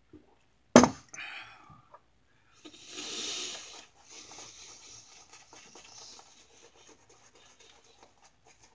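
Wet-shaving sounds: a sharp knock about a second in, then a burst of rubbing, then faint rapid scratching.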